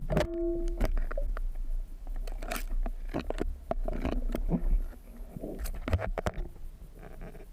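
Underwater clicks, knocks and scrapes as a speargun shaft and a speared mutton snapper are worked against the rock of a crevice, over a low rumble. A brief humming tone sounds just after the start.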